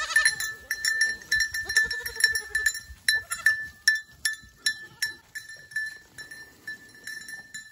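A herd of goats bleating, several short calls one after another, over many sharp clicks and light jingling as the herd moves.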